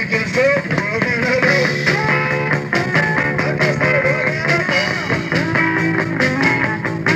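A rock band playing live: guitar lines over a steady drum beat.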